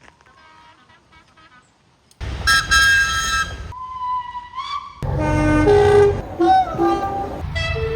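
Train horns: after a quiet start, a loud blast begins suddenly about two seconds in, then a steady high tone that bends upward. From about five seconds in, horn notes step between two or more pitches.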